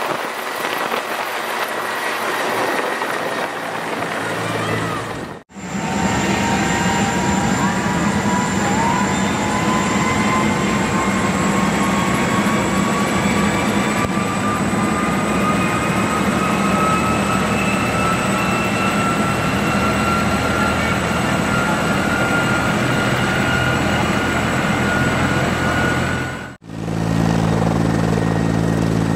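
Bell 412EPI helicopter running: for the first few seconds it is airborne overhead. After an abrupt change, it runs on the ground with its twin turbine engines whining over the rotor, several whining tones rising slowly in pitch. Near the end, after another abrupt change, a low, steady rotor drone comes to the fore.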